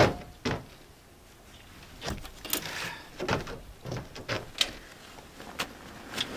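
Camp cooking gear being handled: a sharp knock at the start, then scattered lighter clicks and clatters.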